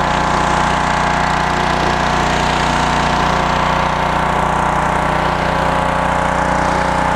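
A 3000 psi, 2.5 gpm gas pressure washer's engine running steadily under load while the surface cleaner sprays across concrete, its water hiss laid over the engine drone.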